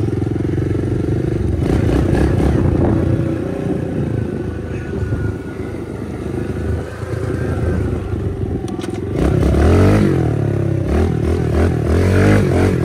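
Stock 2016 Kawasaki KLX110 pit bike's small single-cylinder four-stroke engine running under throttle as it is ridden. From about nine seconds in the revs rise and fall several times in quick succession, and this is the loudest part.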